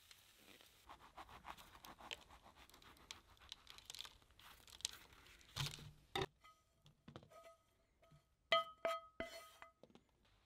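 Cooking utensils scraping and clicking against cookware. In the second half come several sharper taps, a few of which ring briefly with a pitched tone.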